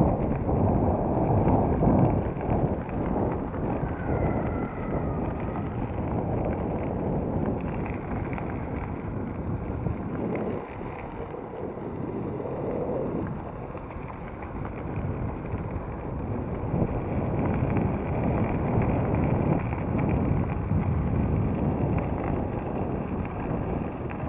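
Wind buffeting the microphone and the rough rumble of an Evolve electric longboard's all-terrain tyres rolling down a gravel road. The noise is uneven throughout and eases for a few seconds around the middle.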